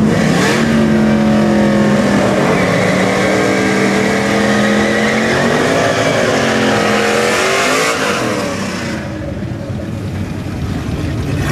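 1998 Trans Am's 6.0-litre LQ4 V8 doing a burnout: the engine revs up and is held at high rpm while the rear tyres spin for about seven seconds, then drops back about eight seconds in. It picks up again near the end.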